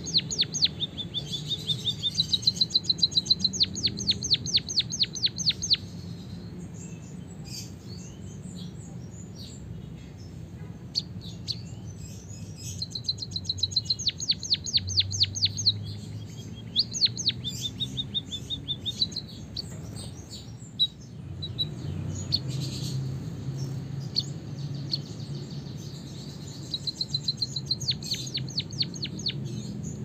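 White-headed munia singing a canary-like song it has learned, in runs of rapid, sharp high notes that roll on for a few seconds at a time with short pauses between.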